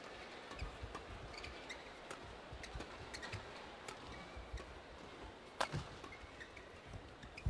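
Badminton rally: a string of sharp racket strikes on a shuttlecock, the sharpest about two-thirds of the way in, with court shoes squeaking and feet thudding on the court.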